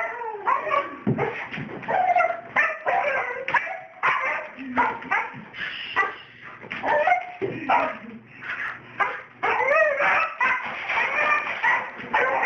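A dog whining and yipping in an excited greeting: a continuous run of short, high cries that bend up and down in pitch, with a few barks among them.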